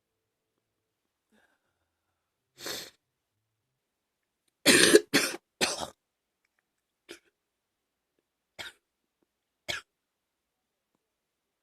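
A person coughing from a viral chest infection: a soft single cough, then a loud burst of three coughs about halfway through, then three short, quieter coughs.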